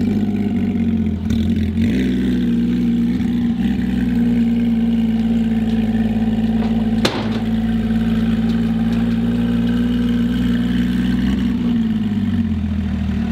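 Porsche 718 GT4's 4.0-litre flat-six running through a Kline Innovation Inconel full exhaust with 200-cell catalytic converters, holding a steady engine speed. A single sharp click comes about halfway through, and the pitch falls away near the end.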